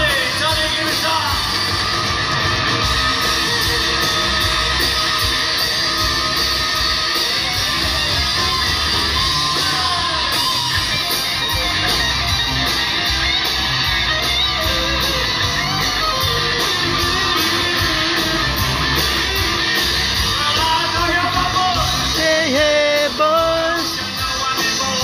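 A live rock and roll band playing an instrumental stretch with electric guitar to the fore, heard from the audience in a large hall.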